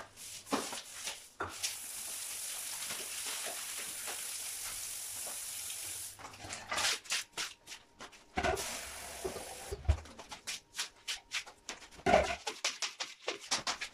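A wet, soapy tiled shower floor being scrubbed with a long-handled brush. There is a steady hiss for about four seconds, then a run of irregular scrubbing and scraping strokes.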